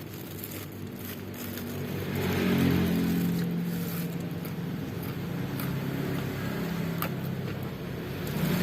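A road vehicle's engine running on the street outside the house, growing louder about two seconds in and then holding steady.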